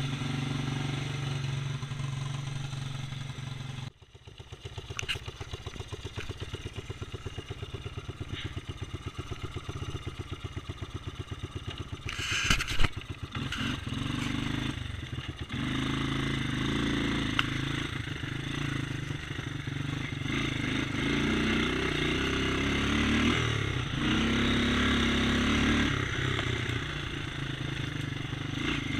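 Yamaha 225 four-wheeler's single-cylinder four-stroke engine idling, then pulling away and running under throttle, the revs rising and falling as it is ridden, with a brief loud knock partway through. It is a worn engine that burns oil and smokes badly, needing new piston rings.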